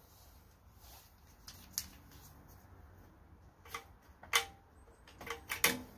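A few sharp clicks and clacks of jumper-cable clamps being handled and touched to the engine's starter terminal, the loudest in the second half. The engine does not crank, as the booster pack is still switched off.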